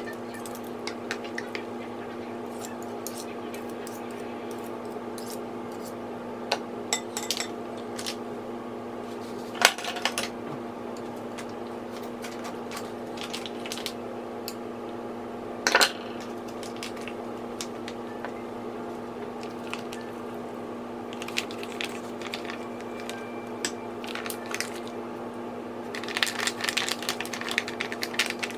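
A fork and a wire whisk stirring a wet batter in a glass mixing bowl, clinking and scraping against the glass, with two louder knocks about ten and sixteen seconds in. Near the end a quick run of crackling as a plastic bag of grated cassava is squeezed out into the bowl. A steady hum runs underneath.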